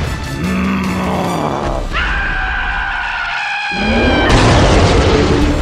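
Cartoon fight sound effects: a rumbling crash, then a held ringing tone, then a loud rushing whoosh in the second half.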